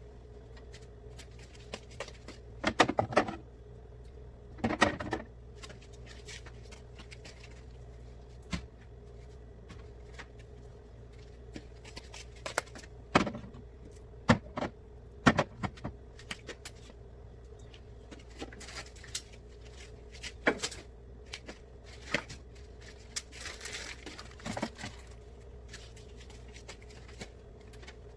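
Irregular knocks, clicks and short clattering and rubbing sounds as containers, shelves and surfaces of a refrigerator are handled and wiped during cleaning, over a steady low hum.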